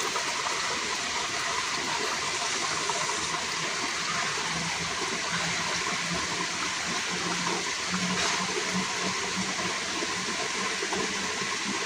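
Spring water pouring steadily from a bamboo spout into a plastic bottle being filled, splashing onto the wet rock below.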